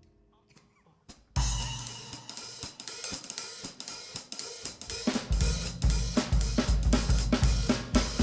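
A jazz drum kit opens a new tune after a moment's silence, starting about a second in: cymbals, hi-hat and snare in a steady beat. Deep bass notes join about four seconds later.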